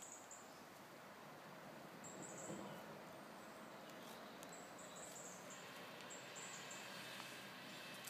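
Faint outdoor background hiss with a small bird chirping: short high-pitched clusters of notes about every two seconds.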